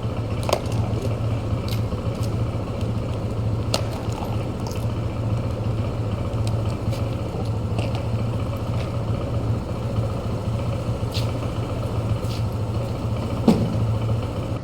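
Portable electric air pump running steadily, with a fast pulsing hum from its piston compressor, as it inflates a plugged motorcycle tyre; a few light clicks, and the pump stops at the end.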